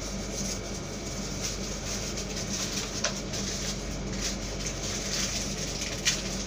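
Steady hum and fan noise from running household appliances, with a few short light clicks about three seconds and six seconds in.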